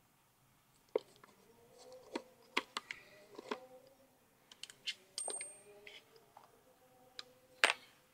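Faint, irregular light clicks and clinks of small metal parts being handled: screws and small fittings taken off a Bolex movie camera and set down in a plastic tray, with a screwdriver tapping against the camera body.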